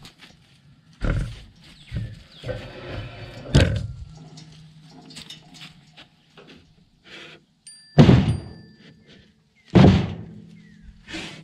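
Heavy squared timber beams being shifted by hand on a wooden trailer deck: a series of heavy wooden thuds and knocks with scraping between them, the loudest two about eight and ten seconds in.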